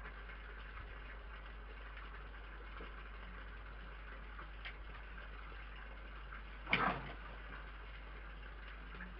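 A steady faint hiss, with one short, sudden noisy burst about two-thirds of the way in.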